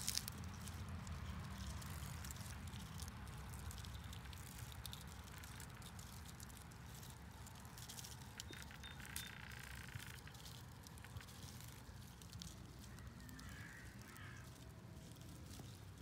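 Faint outdoor background: a low wind rumble on the microphone with scattered light clicks and rustles, and a bird calling briefly about halfway through and again faintly near the end.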